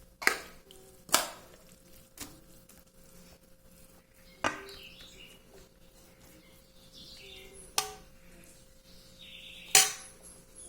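Utensils clinking and knocking against cookware while food is served into a dish: about six separate sharp clinks at uneven intervals, the loudest near the end.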